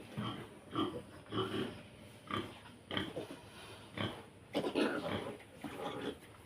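A sow and her piglets grunting and squealing: a quick run of short calls, about two a second.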